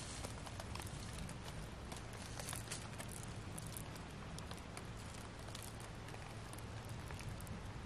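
Faint, scattered crackles of dry fallen leaves being lightly stirred, over a steady low background hiss and hum.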